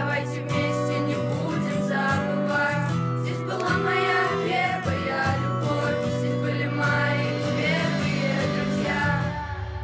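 Background music: an instrumental passage of a song, carried by guitar over a steady bass.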